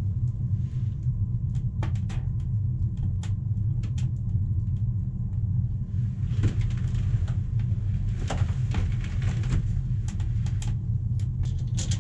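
Steady low rumble, with scattered light clicks and short rustles of hands handling small items.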